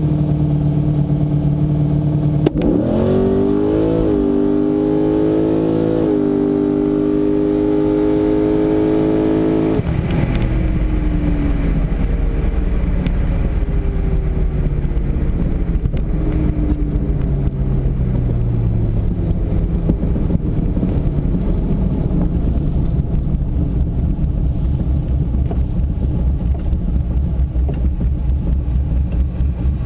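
Z06 Corvette's V8, heard from inside the car: it runs steadily at the start line, then launches about two and a half seconds in and accelerates hard, climbing in pitch through two gear changes. Just under ten seconds in the throttle closes and the engine note drops abruptly, then falls away gradually as the car slows after the eighth-mile pass, ending in a low rumble.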